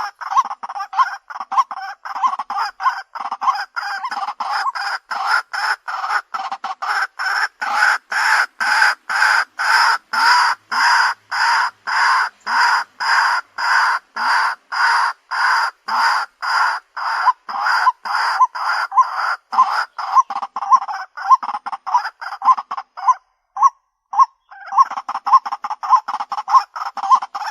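White-breasted waterhen calling: a long, even run of short repeated notes, about three a second, breaking off briefly near the end and then starting again.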